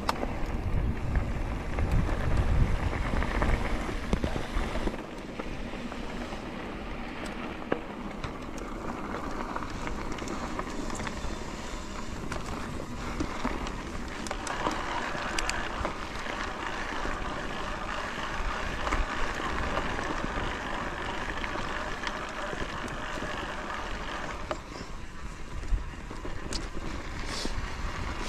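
Wind buffeting the microphone over a steady rushing hiss, heaviest in the first few seconds.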